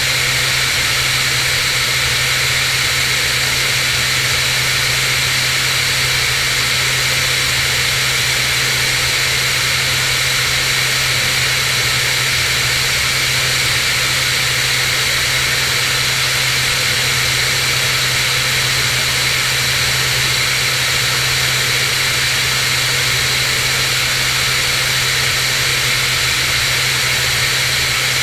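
Cirrus SR22 in cruise flight: the six-cylinder piston engine and propeller drone steadily under a constant rush of air noise, with no change in power.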